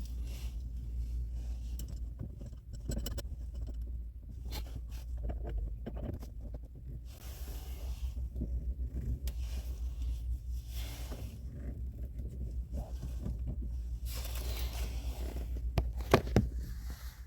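A shift knob being screwed onto the gear lever with a thread adapter: irregular scraping and rubbing of the parts being handled, with a few sharp clicks near the end, over a steady low hum.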